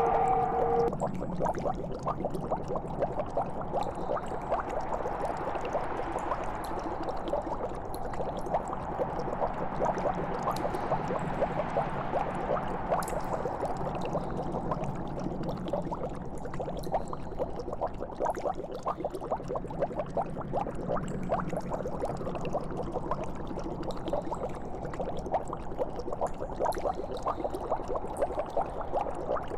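Liquid bubbling steadily, a dense stream of small pops and gurgles. A held droning tone stops about a second in.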